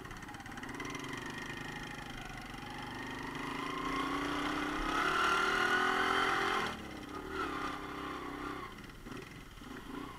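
Romet Ogar Caffe 125 motorcycle engine pulling away and accelerating. Its pitch rises steadily for a few seconds, then drops sharply about two-thirds of the way through, and it runs on more quietly after that.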